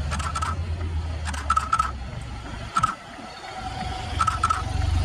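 A motorcycle approaching over a steady low rumble, with scattered sharp clacks in small clusters of two to four.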